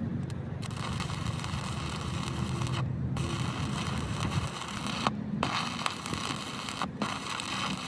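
Arc welding crackling and hissing in runs of about two seconds, broken off sharply three times, over a steady low engine-like hum.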